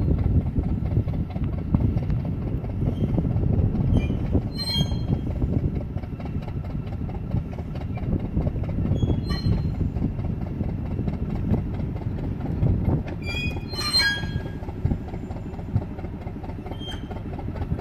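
Locomotive BSC1 running along the track with a continuous rumble, its wheels giving a few brief high-pitched squeals against the rails, the loudest about fourteen seconds in.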